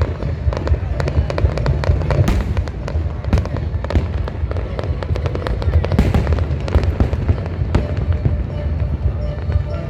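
Fireworks display: a constant low rumble of shell bursts with many sharp bangs and crackles on top, the loudest of them landing every second or so.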